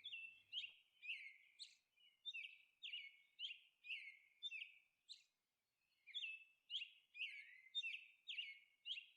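Faint bird chirping: short, high, falling tweets about two a second, with a pause of about a second around the middle.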